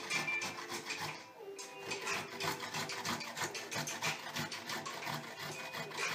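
Fresh ginger root being grated on a hand grater: rapid repeated rasping strokes, with a short break a little over a second in.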